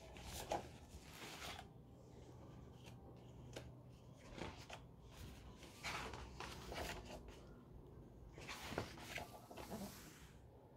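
Pages of a hardcover picture book being turned by hand: faint paper rustles and soft handling noises, several short ones spread through.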